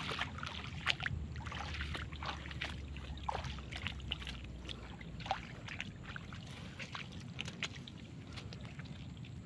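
Small splashes, drips and sloshing as a wet nylon cast net is gathered up and handled by someone standing in shallow water. The sounds come as many short, irregular splashes and ticks over a low steady background noise.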